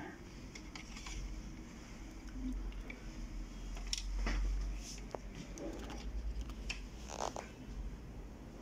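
Hands working on the plastic parts of an Epson DS-1630 scanner's document feeder: scattered small clicks, taps and scrapes as parts are fitted back in, over a low steady hum.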